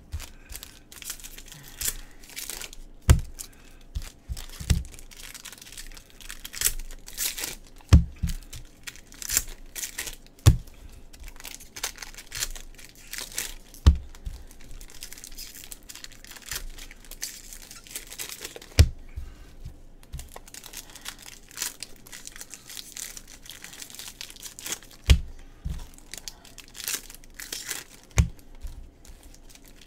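Foil trading-card packs being torn open and their wrappers crinkled, one after another, with about ten dull thumps scattered through it.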